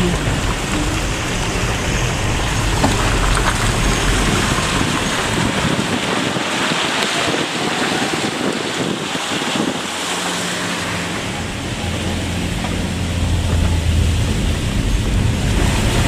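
Car cabin noise while driving on a forest road: a low engine hum under steady rushing road and wind noise. For a few seconds in the middle the engine hum drops away while the rushing grows louder, then a steady engine hum returns.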